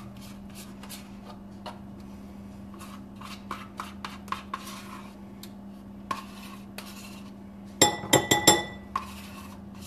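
Sour cream being scraped from its tub into a small bowl with a utensil: scattered light clicks and scrapes, then a quick run of loud, ringing clinks against the bowl about eight seconds in.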